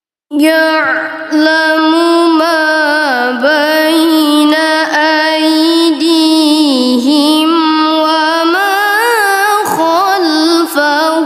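A high, melodious voice reciting the Quran in ornamented tilawah style, with long held notes that waver and glide in pitch. It starts abruptly about a third of a second in, with brief dips near one second and again near ten seconds.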